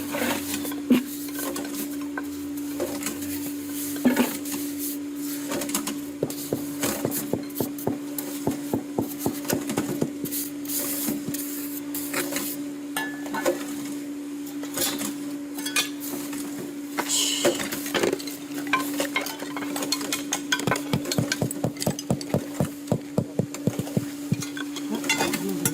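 Repeated metallic clinks and scrapes of a tool working against a container, becoming a quick run of several strokes a second in the second half, over a steady hum.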